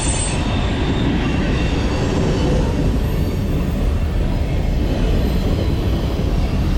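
BMX bike rolling over skate park concrete, heard close up from a point-of-view camera: a steady, loud rumbling noise of the tyres on the ground.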